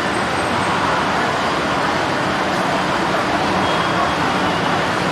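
Steady noise of road traffic passing, with no single vehicle standing out.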